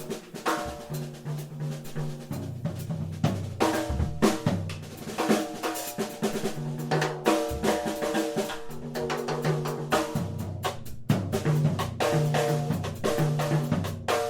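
Instrumental music: a guitar playing over a drum kit with snare and bass drum, and a bass line moving beneath.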